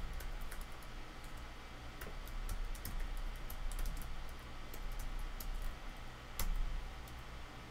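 Typing on a computer keyboard: scattered, uneven light keystrokes, with one louder click about six and a half seconds in.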